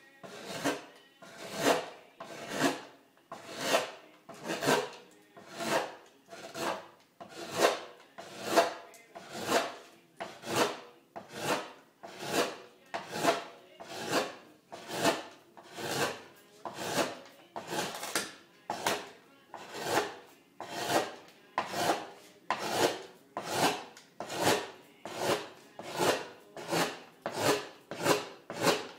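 Hand gouge cutting into a spruce cello top to graduate its thickness: a steady run of short scraping cuts, a little more than one a second, each swelling and then breaking off as a shaving comes away.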